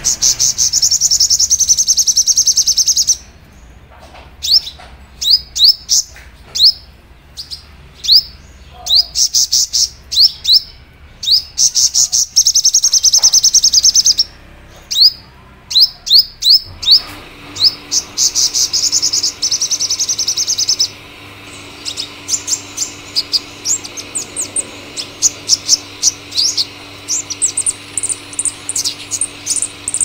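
Purple sunbird singing: high, fast trills alternate with runs of sharp rising chirps, ending in a long run of quick short notes.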